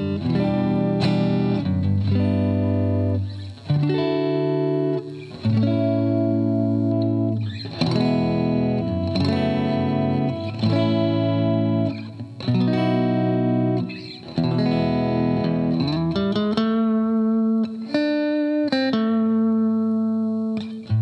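Electric guitar, a 2017 Squier Affinity Telecaster, played through an amp: a run of chords and notes, each left ringing for a second or two, with a note sliding up in pitch about three-quarters of the way through.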